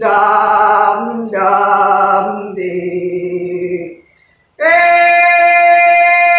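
A woman's voice chanting light language: sung, wordless syllables in a rising and falling sing-song for about four seconds. After a brief pause, a steady held tone with many overtones starts abruptly near the end.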